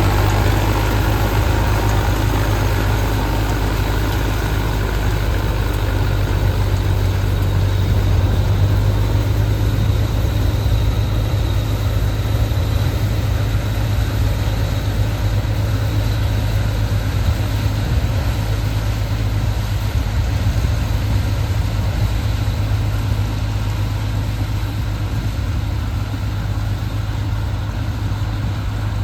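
Tractor diesel engine running steadily, a continuous low drone, with the Nippy45 mini combine harvester attachment working.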